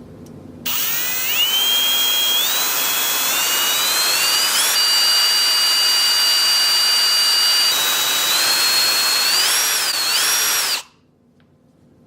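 Electric drill drilling a hole into an iPhone 7. It starts about a second in with a whine that rises as the motor speeds up, holds a steady pitch, wavers near the end, and stops abruptly about eleven seconds in.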